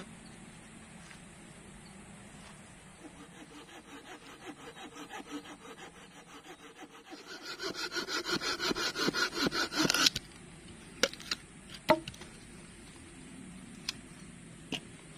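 Hand saw cutting through wood in quick back-and-forth strokes, about three or four a second. The strokes start faint, grow louder and rasping, then stop suddenly, followed by a few sharp knocks of wood.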